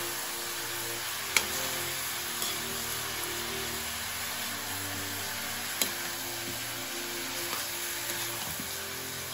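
Chicken pieces sizzling as they fry in a wok, stirred with a metal spatula that knocks sharply against the pan twice. Soft background music plays underneath.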